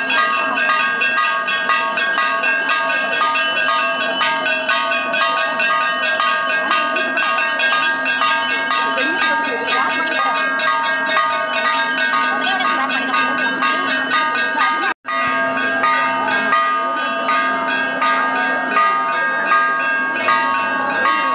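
Temple bells ringing continuously with rapid, overlapping strikes, a steady wash of ringing tones, under the murmur of a crowd. The sound drops out for an instant about three-quarters of the way through, then resumes.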